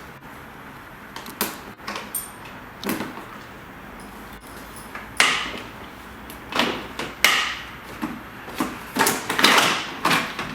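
Plastic trim covers being unclipped and pulled off the front of a Toyota Prado 150: a few sharp clicks at first, then from about five seconds in a series of scraping, rattling plastic knocks.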